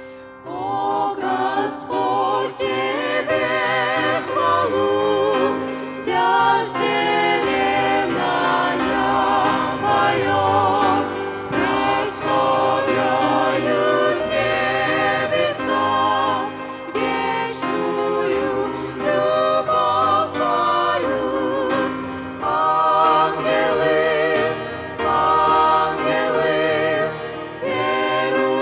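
A small mixed vocal group of men and women singing a hymn together into microphones, several voices in harmony with vibrato on the held notes.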